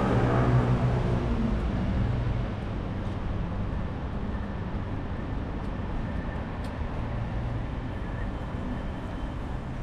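Street traffic: a passing vehicle's engine note fades away over the first couple of seconds, leaving a steady low rumble of traffic.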